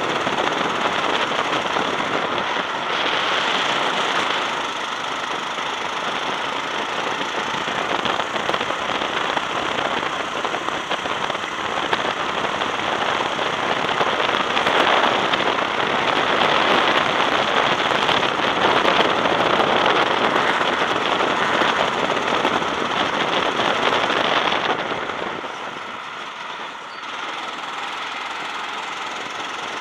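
Honda-powered go-kart engine running at speed, heard from an onboard camera with wind buffeting and crackle on the microphone. The sound eases off about twenty-five seconds in.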